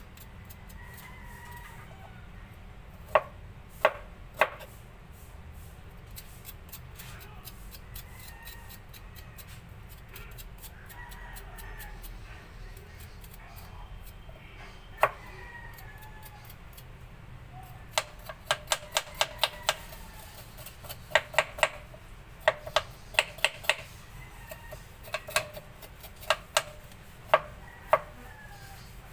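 Kitchen knife chopping ginger on a cutting board: a few scattered sharp taps, then quick runs of chops, about four a second, in the second half, with more single taps near the end.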